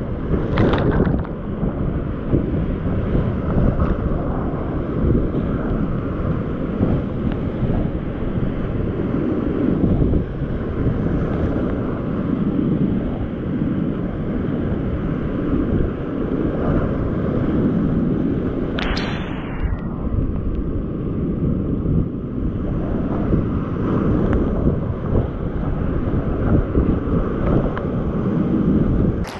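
Big, high-water whitewater rapids rushing and crashing loudly around a kayak, heard close up from the paddler's camera with water and buffeting hitting the microphone. A brief sharp hiss of spray cuts through about two-thirds of the way in.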